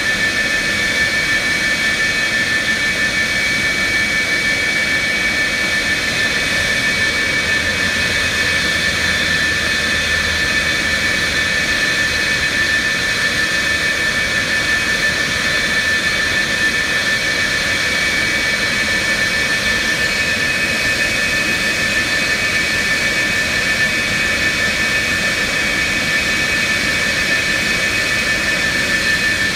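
F-4E Phantom's twin General Electric J79 turbojets running steadily at idle: a loud, unchanging high whine over a rushing roar.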